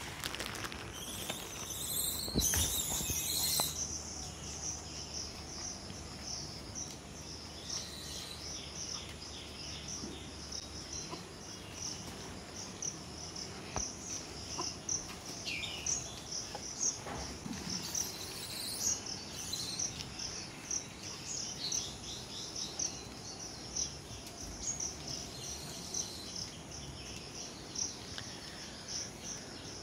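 An insect chirping in a high, evenly pulsing trill, with a louder burst of rustling noise about two to four seconds in.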